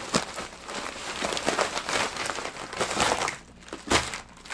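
Plastic mailing bag and the tackle packaging inside it crinkling and rustling as hands dig through it, with a few sharper crackles, the loudest near the end.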